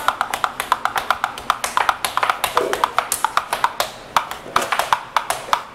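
Hands clapping and tapping out a quick beat, about five sharp claps a second.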